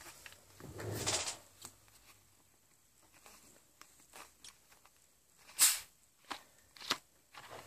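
Close-up handling of a small plastic bottle and a clear plastic cup: a soft rustle about a second in, then a few sharp clicks and taps, the loudest just past halfway.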